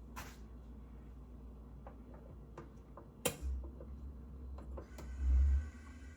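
Gas heater's spark igniter clicking a few times at uneven intervals, then the burner catches about three and a half seconds in with a low rumble that swells briefly, joined by a steady hiss of burning gas.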